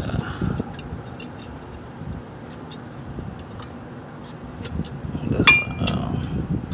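Light metallic clicks, then about five and a half seconds in a sharp ringing clink of metal on metal, as a new brake pad's steel backing plate and clips are slid into the caliper bracket.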